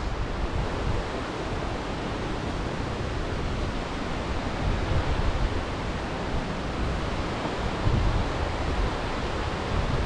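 Steady rushing of a waterfall, with low gusts of wind buffeting the microphone now and then.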